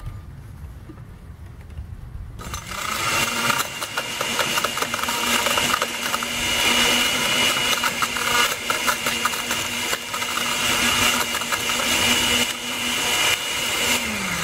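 Oster blender's motor starting up about two seconds in and running at full speed, with the blade smashing a computer mouse so that hard plastic pieces clatter and rattle against the jar. Near the end the motor's hum falls in pitch as it winds down.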